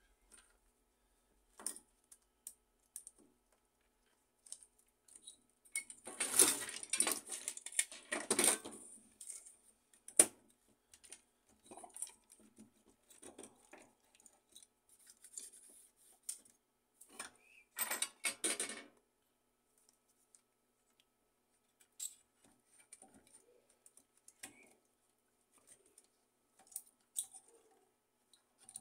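Plastic and metal parts of a laser printer's fuser assembly being handled and fitted together by hand: scattered clicks and light clatters, with a longer bout of rattling a few seconds in and a shorter one past the middle.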